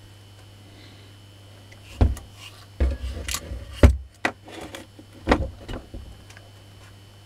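Clunks and knocks from a washing-machine motor being handled on a workbench as it is lifted, turned over and set back down. Several sharp knocks come in a cluster from about two to six seconds in, the loudest near the middle.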